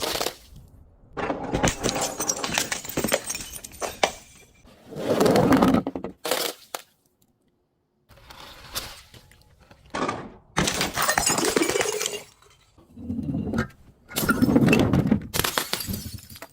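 Brittle objects being crushed, breaking and crunching in a series of separate bursts, each lasting from half a second to a couple of seconds, with a short dead-silent gap midway.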